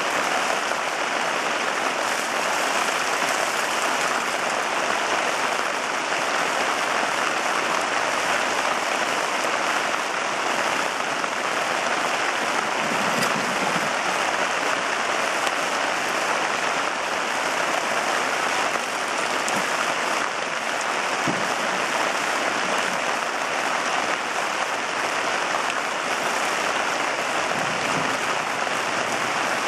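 Steady rain falling, an even patter of drops.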